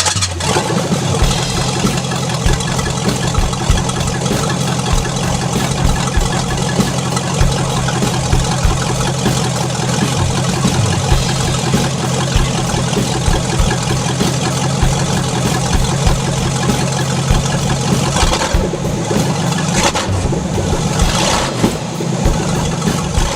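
A car engine starts and runs at a steady idle, then revs a few times near the end.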